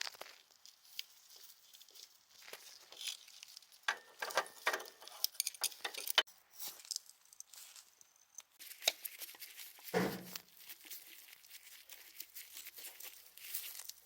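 Workshop handling noises of parts being refitted to a two-stroke motorcycle engine's ignition side: scattered light metal clicks and rustling, with one heavier knock about ten seconds in.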